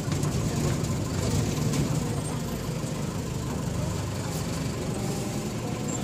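Engine of an open safari truck running steadily, a constant low rumble heard from the rear seats. The sound is loud enough to drown out talk.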